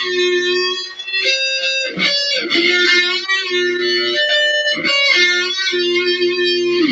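Electric guitar played in a shred style: quick runs of notes with held notes between them, some bent up and down in pitch.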